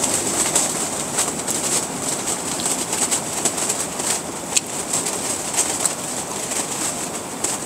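Strong gusty wind buffeting a one-touch octagon tent, the fabric shaking and snapping with quick crackles throughout.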